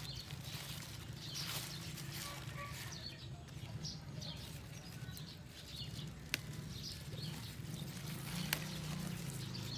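Red leaf lettuce leaves rustling as they are picked by hand, with faint short bird chirps scattered through and a steady low hum underneath. A couple of sharp small clicks stand out.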